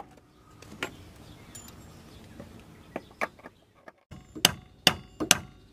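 A hammer tapping a steel bolt through a car's rear strut lower mounting holes to seat it. There are a few light knocks, then four hard strikes near the end, evenly spaced, each with a metallic ring.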